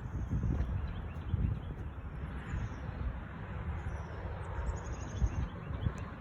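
Strong gusty wind buffeting the microphone in uneven rumbles, with a small bird chirping several times in the background, in a quick run around the middle.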